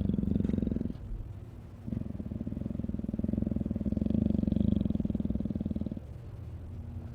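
Monster-cat creature sound effect: a low, rough, pulsing growl, dropping away briefly about a second in and again near the end.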